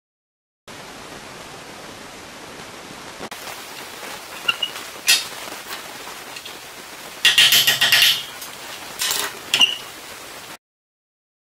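Sharp metal clinks and taps of a steel pin punch and a brass clock gear against a steel vise, with a short ringing after some strikes. A quick cluster of taps comes a little past halfway, then two more clinks. The sound cuts to dead silence briefly at the start and again for the last second.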